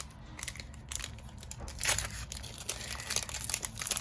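Foil Pokémon TCG booster pack wrapper crinkling and being torn open, the crackling loudest from about two seconds in.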